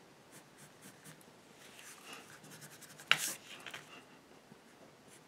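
Staedtler graphite pencil scratching on drawing paper in a run of short, light strokes, with one sharper, louder stroke about three seconds in.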